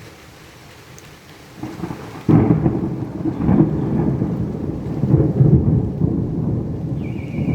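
Thunder during a thunderstorm. A rumble starts to build about a second and a half in, then a sudden loud clap comes just after two seconds, followed by long rolling rumbles that surge and fade. A steady high tone starts near the end.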